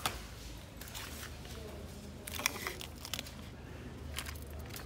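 Scattered light clicks and crinkly rustling over a low steady background hum, with the sharpest click about two and a half seconds in.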